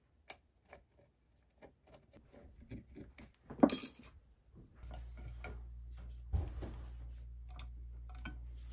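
Light clicks and clinks of AK pistol parts and polymer handguards being handled on a workbench, with one loud clatter about three and a half seconds in. About a second later a steady low hum sets in, with a single thud and more small knocks over it.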